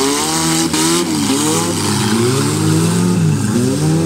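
Several car engines revving and easing off, at least two at once, their pitches overlapping and rising and falling over a steady hiss.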